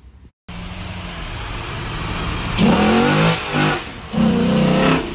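Chrysler 300 SRT8's HEMI V8 running at idle, then revved several times in the second half, each rev louder than the idle.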